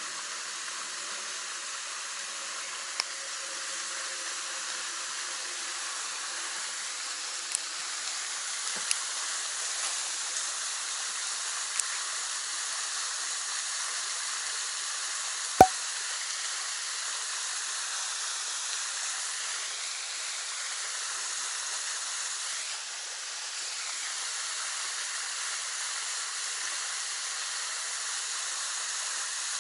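Steady outdoor hiss with a few faint ticks and one sharp click about halfway through.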